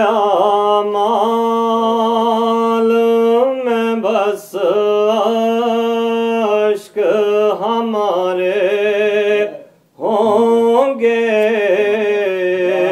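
A man's voice chanting an Urdu noha (a mourning lament) in long, drawn-out notes with a wavering pitch. The phrases are broken by three short pauses.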